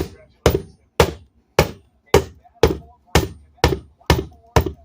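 Hammer blows on a scrapped appliance being broken apart for scrap, ten sharp strikes at an even pace of about two a second.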